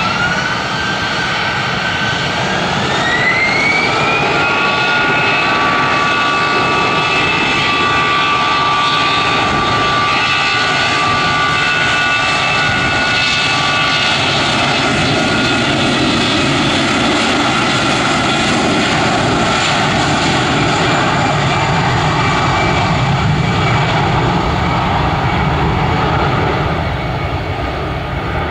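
Airbus A320's twin turbofan engines spooling up to takeoff thrust: several whining tones rise in pitch over the first few seconds, then hold steady over a loud, constant jet roar during the takeoff roll.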